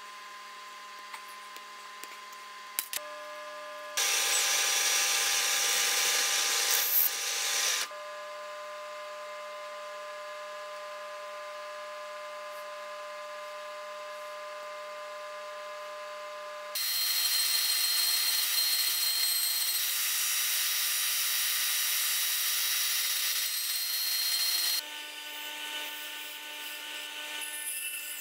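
Metalworking on a small steel pocket clip: a few sharp snips from tin snips near the start, then two long stretches of harsh grinding of steel, about four and eight seconds long, with rougher grinding near the end. A faint steady hum lies under it all.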